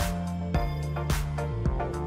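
Background music with a steady beat, about two beats a second, over sustained instrumental notes.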